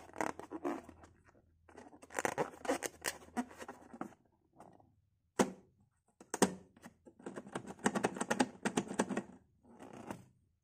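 Fingers rubbing and squeezing a filled rubber balloon: scratchy, crackly rubber-on-skin friction in several bursts, with a couple of sharp clicks about halfway through.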